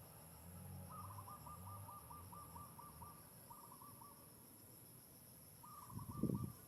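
A bird calling in the distance: a rapid, even run of short hooting notes at one pitch, repeated about two seconds later. A low thump near the end is louder than the calls.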